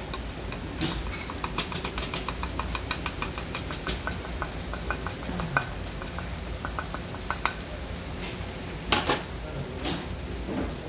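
Wooden chopsticks and spatula clinking against a small ceramic bowl as dried red chilies and nuts are pushed off it onto a hot iron pan of stir-fried chicken: a long run of quick, light clinks, then a couple of louder scrapes against the pan near the end.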